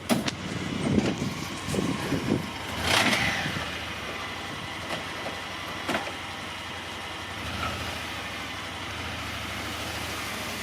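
A vehicle engine running steadily, its low hum growing a little louder about seven and a half seconds in, with a few clunks and rustles in the first three seconds.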